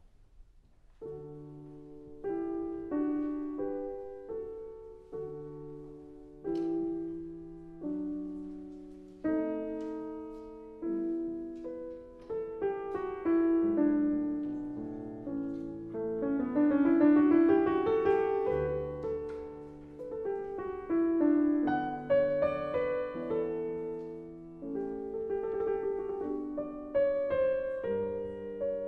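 Solo piano background music, starting about a second in: chords struck and left to ring at first, then a quicker run of notes in the middle.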